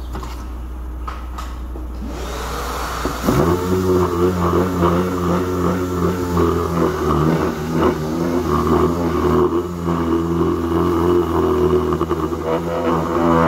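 Air-powered random-orbital sander spinning up about three seconds in, then running steadily with its pitch wavering as it sands body filler on a bus side skirt panel. A low steady hum comes before it starts.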